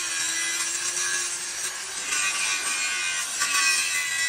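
A tool working on steel, making a steady harsh scraping noise.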